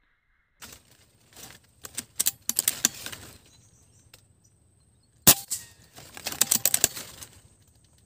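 A single sharp air-rifle shot about five seconds in, between bursts of rapid clicking and rattling before and after it.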